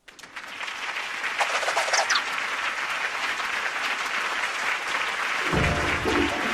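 Cartoon audience applause, a steady clapping that swells in and holds. Music begins about five and a half seconds in.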